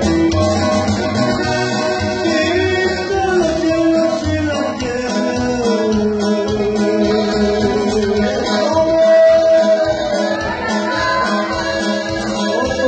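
A man singing a hymn through a microphone and PA, his voice holding long gliding notes, backed by guitar and a steady bass beat.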